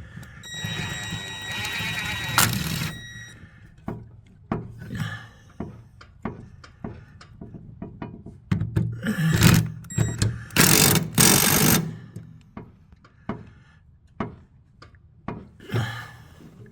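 An impact driver running in three bursts, each a whine mixed with rapid hammering, with scattered clanks and knocks of metal parts between them.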